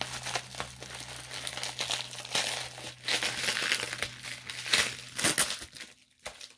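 Crinkly plastic packaging being handled and unwrapped by hand, a dense crackling that grows louder in short spells around the middle and thins out near the end.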